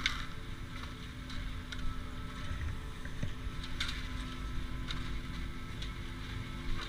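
Steady mechanical hum and rumble of a 1986 Gradio triple chairlift's station machinery, with scattered light clicks and clacks of skis and poles on the packed snow.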